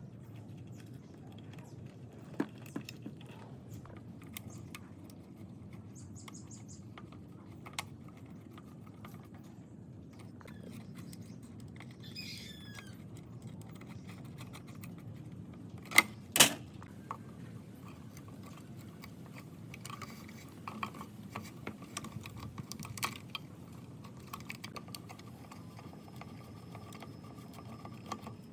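Scattered light clicks and knocks over a steady low hum, with two sharp, louder clicks about two-thirds of the way through.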